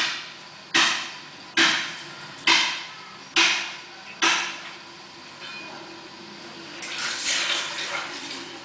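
Six sharp knocks, evenly spaced a little under a second apart, each dying away quickly, followed about seven seconds in by a softer rushing swell.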